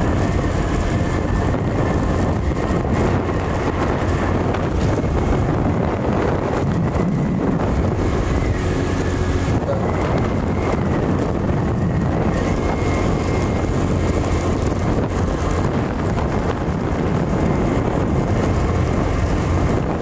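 Small motorcycle running at a steady cruise, engine hum mixed with wind rushing over the microphone.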